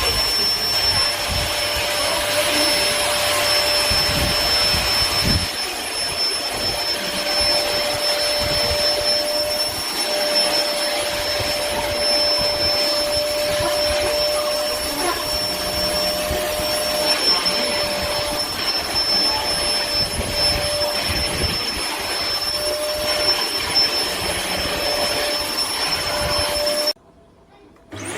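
PowerPac bagless cyclone vacuum cleaner running steadily, a whining motor over a rushing hiss of air, cutting off suddenly near the end.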